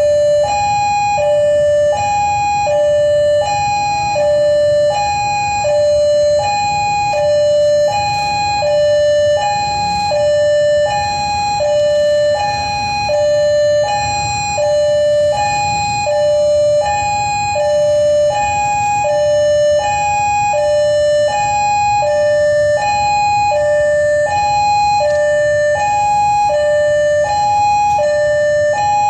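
Electronic railway level-crossing warning bell repeating an alternating high-low two-tone chime, about one high-low pair a second. A low rumble of traffic runs underneath.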